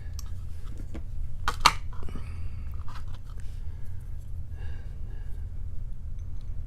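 Light clicks and taps from handling a picked padlock and its parts during disassembly. The loudest is a sharp double click about a second and a half in. A steady low hum runs underneath.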